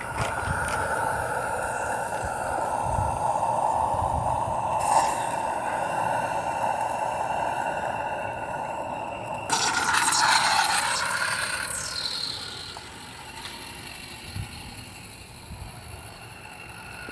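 Gauge One live-steam locomotive hissing steam. A louder hiss starts suddenly about nine and a half seconds in and dies away over a couple of seconds.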